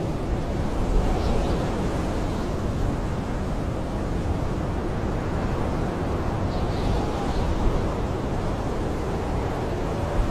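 Blizzard wind blowing steadily, a low rushing noise with a faint whistling howl that glides in pitch near the start and again near the end.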